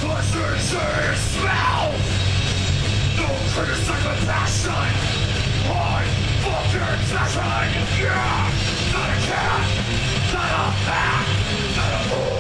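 Live heavy metal band playing at full volume: distorted electric guitars, bass and drums, with the singer yelling vocals into the microphone.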